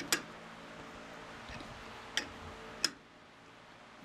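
Three sharp metallic clicks from a chuck key on a four-jaw lathe chuck as the jaws holding a heavy cast-iron slug are checked for tightness: one at the start, then two about two and three seconds in, over a faint steady hum.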